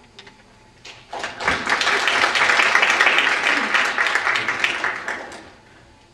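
Audience applauding: the clapping starts about a second in, builds quickly, holds, then dies away near the end.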